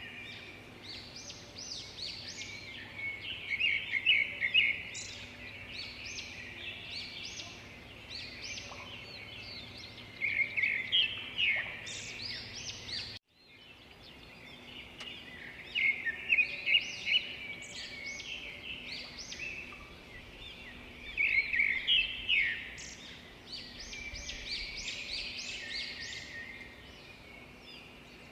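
Several birds chirping and trilling in quick phrases over a faint steady hum, cutting out abruptly for a moment about halfway through, then resuming.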